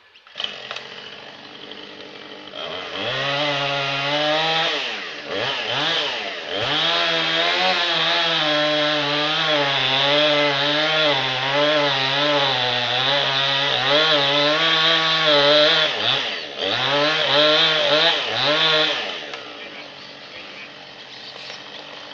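Chainsaw idling, then run up to full throttle about two and a half seconds in and cutting through the trunk of a gum tree to take its top out, the pitch wavering under load. It eases off briefly twice and drops back to idle about three seconds before the end.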